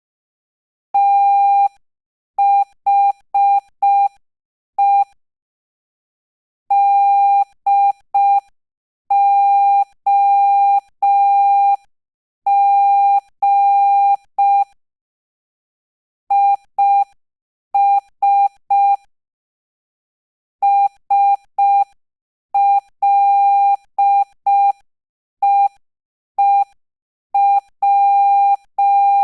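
Morse code sent as a single steady beep, keyed on and off in short dots and longer dashes. It is sent slowly, at 5 words per minute, with long silent gaps between letters and words.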